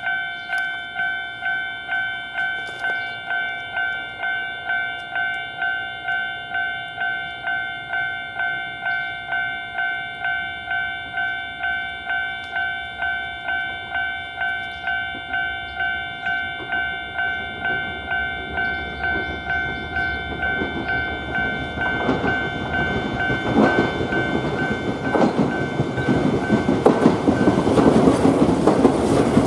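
Japanese railway level-crossing alarm ringing its 'kan-kan', about two strikes a second. From about twenty seconds in, a Yoro Railway train approaches and passes, its wheels clattering over the rail joints and growing louder until it drowns out the bell near the end.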